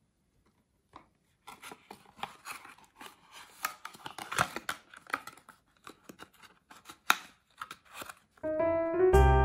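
Irregular crackling, rustling and sharp clicks of hands working with something, snipping or tearing, for several seconds. Piano music starts about a second before the end.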